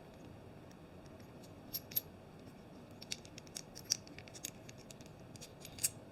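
Small, sharp metal clicks and taps, a dozen or so at irregular intervals, from handling an aluminium and stainless-steel swivel-and-tilt camera mount head.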